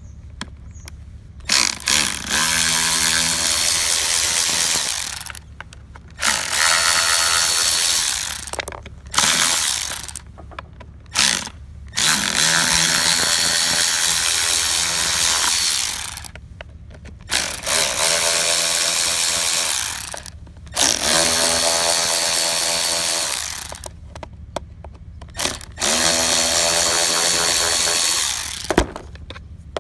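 Cordless electric ratchet running in repeated bursts of one to four seconds, about seven in all with short pauses between, backing out the cover bolts of a crankcase breather housing. Its motor whine rises in pitch as each burst starts.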